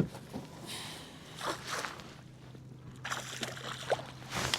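A sharp knock, then a string of short splashes and rustles around a fishing kayak as a caught bass is handled, over a faint steady low hum.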